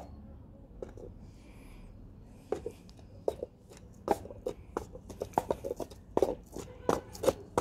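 Paper cups being slid and set down on a wooden table: irregular light taps and knocks. The taps come thick and fast from a couple of seconds in.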